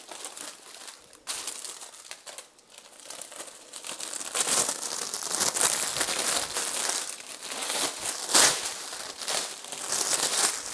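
Clear plastic roasting-bag film being handled and crinkled, an uneven crackling rustle that comes and goes, loudest about four and a half and eight and a half seconds in.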